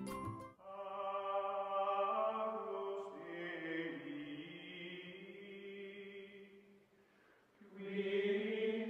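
Background music of wordless voices holding long, sustained chords, like a choir or chant. The sound dips about seven seconds in, and a new held chord comes in near the end.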